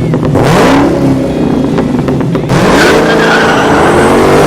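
A car engine revving up hard twice, its pitch climbing and then holding high each time, with a rush of noise at each climb, and falling away at the end.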